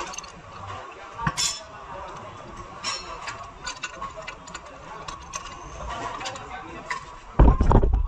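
Scattered metallic clinks and clicks of hand tools and steel suspension parts being handled, with a heavy low thump and rumble for about half a second near the end.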